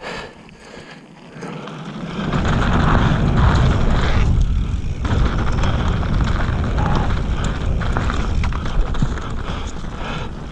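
Mountain bike riding fast down a dirt trail: wind rushing over the action-camera microphone with low rumble and rattle from the tyres and bike. Quieter for the first second or two, then loud and steady from about two seconds in.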